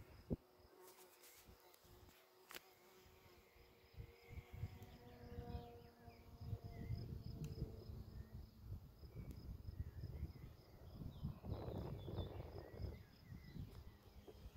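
Field insects chirping in a steady, rapid pulse, with gusts of wind rumbling on the microphone, strongest in the second half.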